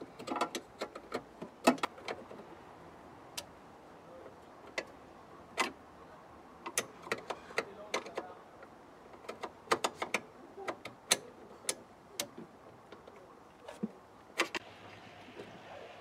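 Irregular metallic clicks and taps of a hand wrench on the brake line fittings of a car's brake master cylinder, as the fittings are worked loose or tightened.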